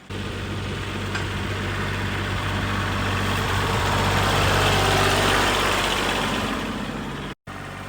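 Kubota compact tractor's diesel engine running steadily, growing louder toward the middle and then easing off.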